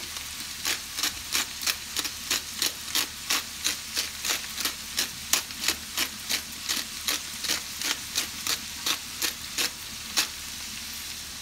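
Hand-twisted pepper grinder grinding black pepper, clicking about four times a second and stopping near the end. Cabbage and onions sizzle steadily in the frying pan underneath.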